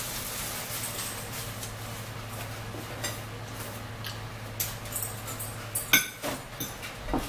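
A paper towel roll being handled and a sheet torn off: paper rustling with a few sharp clicks and clatters, the loudest about six seconds in.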